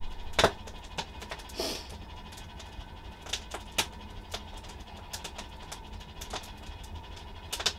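Scattered sharp clicks and taps, with one short animal call about one and a half seconds in.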